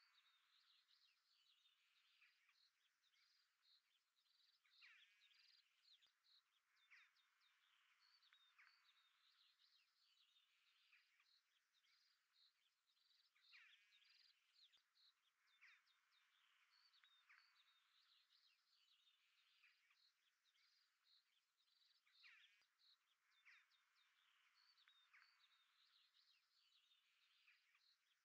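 Near silence, with very faint, repeated bird chirps and trills.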